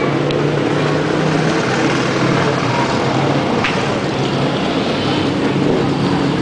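Steady street traffic noise with vehicle engines running. A short sharp click about three and a half seconds in.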